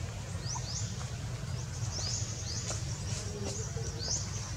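Repeated high, rising chirps, mostly in quick pairs every second or so, from a small bird, over a steady low rumble.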